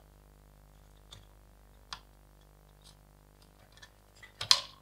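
Quiet workbench with a faint steady hum and a few light clicks as the soldering iron tip and circuit board are handled, then a short louder rustle near the end.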